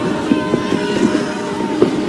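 Film score holding sustained low tones, the choral music fading into them, over a steady noisy background.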